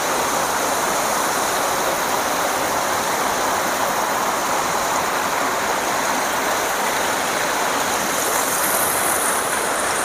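A mountain waterfall and its stream: water rushing in an even, unbroken wash that holds one level throughout.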